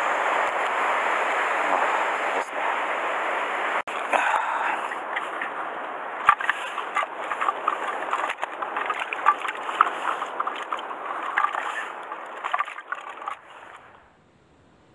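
Rough sea surging and foaming against the rocks, a steady rush of surf close to the microphone. From about four seconds in, scattered clicks and rustles from handling are heard over it. Near the end the sound drops away suddenly to a much quieter background.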